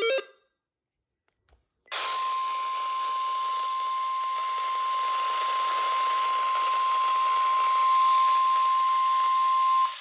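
NOAA Weather Radio 1050 Hz warning alert tone coming through a Grecom handheld scanner's speaker: one steady tone over radio hiss, starting about two seconds in and cutting off after about eight seconds. The tone signals that a warning broadcast, here a severe thunderstorm warning, follows.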